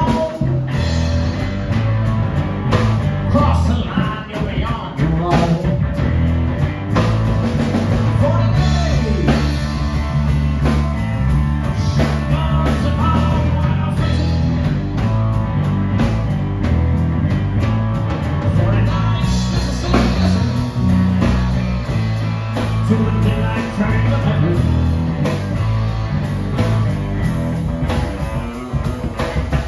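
Live blues band playing: two electric guitars over a drum kit keeping a steady beat, with a heavy low end.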